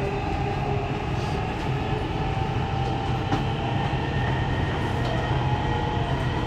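Dubai Metro Red Line train running between stations, heard from inside the carriage: a steady rumbling hum with a faint, even whine above it.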